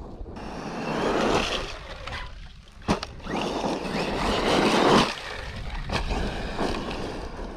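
Traxxas E-Revo 2.0 electric RC monster truck driving hard on loose gravel: a rough noise of tyres churning and spraying stones that swells and fades in surges, with a sharp click about three seconds in.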